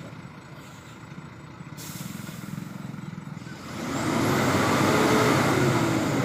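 Hino 500 Euro 4 diesel truck engine running with a low, even pulse, then about four seconds in its roar builds to a loud rush that peaks and begins to ease off near the end.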